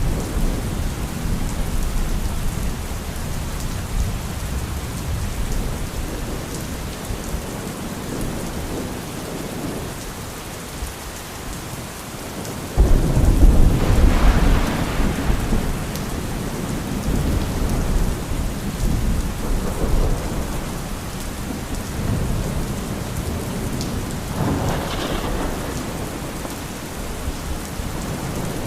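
Thunderstorm: steady rain with rolling thunder. About halfway through a sudden loud thunderclap breaks in and rumbles for a few seconds, and a softer roll of thunder follows near the end.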